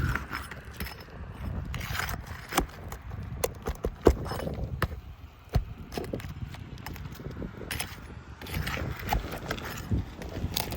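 Irregular clicks, taps and scrapes of hand tools prying and working at asphalt roof shingles and their nails, over a low steady rumble.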